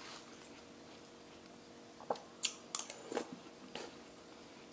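A metal spoon scraping and clicking against a halved watermelon as the flesh is scooped out and eaten, with about half a dozen short, faint clicks and scrapes a couple of seconds in, along with faint chewing.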